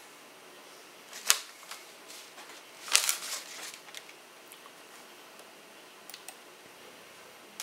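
Sharp clicks: a loud one about a second in, another about three seconds in followed by a brief clatter of smaller clicks, then a few faint clicks near the end, over a low steady hiss.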